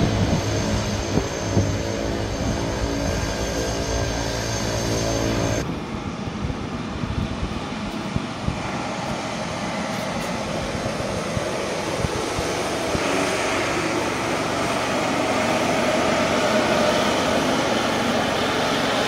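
Engines of a small twin-engine turboprop plane running, with a steady hum at first. About six seconds in the sound changes abruptly to an even engine noise that grows gradually louder toward the end.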